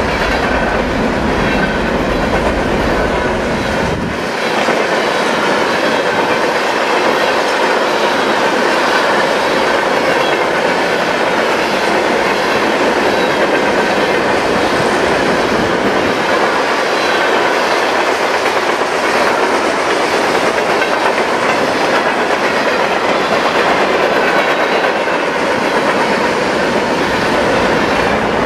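A freight train's covered hopper cars rolling past, steel wheels clattering steadily over the rail. The deepest rumble drops away about four seconds in.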